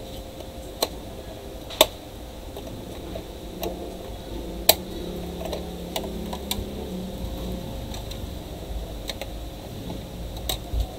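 Scattered sharp clicks and snaps as a pry tool works along the glued seam of a Miniso A18 portable speaker's casing, about ten in all at uneven intervals, the loudest about two and five seconds in.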